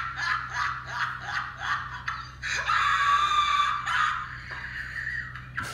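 A young man laughing hard in quick breathy bursts, about three a second, breaking into a long high-pitched squeal of laughter in the middle, then trailing off into scattered snickers.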